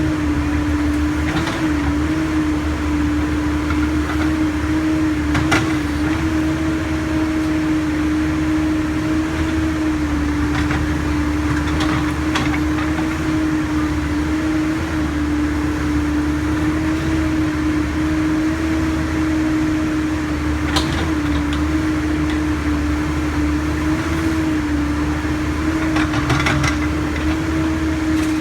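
Backhoe's diesel engine running steadily with a constant droning hum, with a few short sharp knocks scattered through as it digs.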